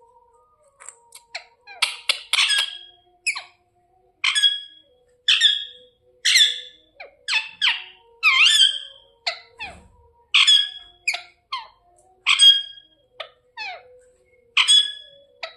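Indian ringneck parrot screeching: a run of more than a dozen short, harsh calls, about one to two a second, several sliding down in pitch.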